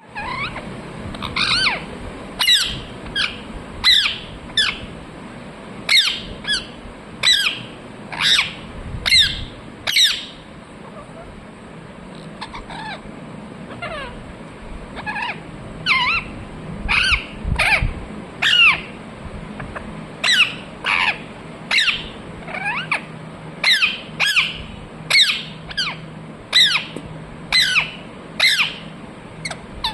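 Pet parrot calling: a long run of short, sharp calls, about one or two a second, that sweep up and down in pitch, with a pause of a few seconds in the middle.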